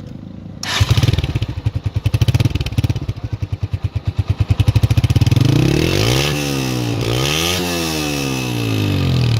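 Honda CB125F's single-cylinder four-stroke engine idling with an even pulsing beat, then revved twice about six and seven and a half seconds in, the pitch climbing and dropping back each time.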